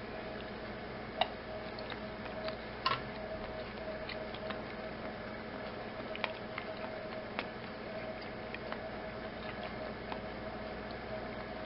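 Quiet kitchen room tone: a steady hum with scattered small clicks and ticks, the sharpest a couple of clicks about one and three seconds in.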